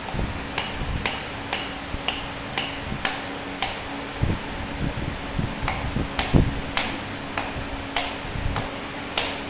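A hammer striking metal in sharp, briefly ringing taps, about two a second, with a short pause in the middle, while freeing a corroded scooter brake caliper.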